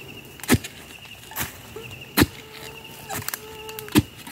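Manual post-hole digger with two wooden handles being jabbed into hard, dry ground: four sharp thuds about a second apart.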